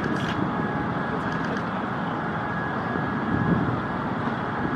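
Steady low rumble of traffic, with a thin faint whine held through it. A few faint short ticks sound near the start and again about a second and a half in.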